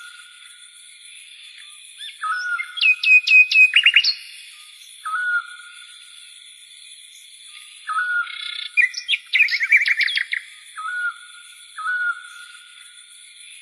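Bird-like chirping: short whistled notes repeating every second or two, with two bouts of rapid rising trills, over a faint steady high-pitched hum.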